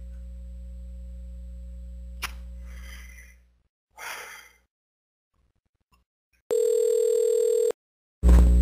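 Telephone line on hold for an agent: a steady low hum with a click about two seconds in fades away, then after a pause a steady ringing tone of about a second sounds as the call is put through, and a louder tone starts near the end.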